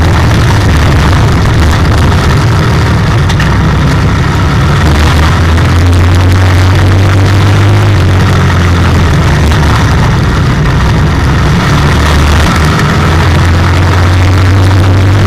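IMCA stock car's V8 engine heard from inside the cockpit while racing, loud and continuous, its note fading and swelling a few times as the throttle comes off and goes back on.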